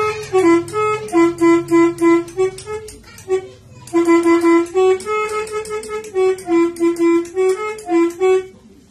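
Telolet horn: a set of Maroo air-horn trumpets sounded one note at a time through a 17-button switch module, tooting a quick melody of short reedy notes in two phrases with a brief pause between them.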